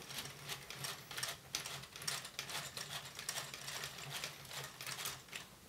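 Fast, faint clicking of plastic LEGO Technic parts as a hand works a crank mechanism on the model.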